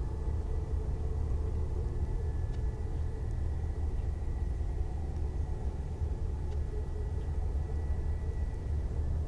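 Steady low rumble of de-icing trucks at work on an Airbus A320-232, with a faint, steady high whine over it.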